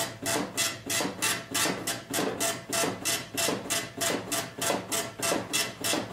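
Dot-matrix printer printing line after line on continuous-feed tractor paper: a quick raspy burr from the print head about three times a second, in an even rhythm.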